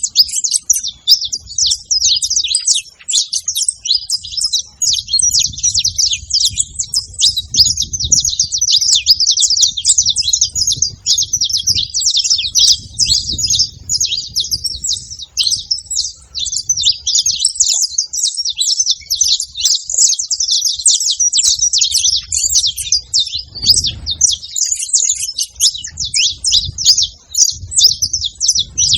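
Saffron finches chirping in a dense, unbroken stream of rapid high calls.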